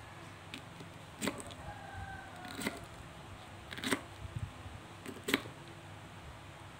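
Kitchen knife cutting through fresh pineapple chunks, each stroke ending in a sharp knock on the wooden board beneath; four cuts, roughly a second and a half apart.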